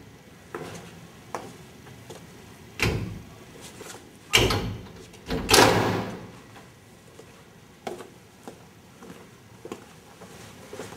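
Doors being opened and shut: a string of knocks and clunks, with louder bangs about three, four and a half and six seconds in, the last one trailing off for about a second.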